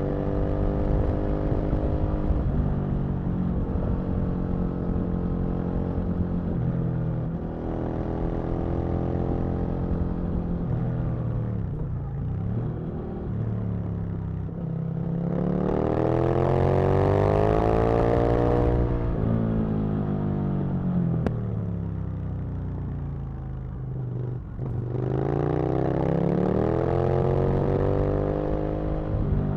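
Aprilia RSV Mille's 60-degree V-twin engine riding along, revs rising and falling: a hard climb in revs about halfway through that then falls away, a short dip, and another climb near the end.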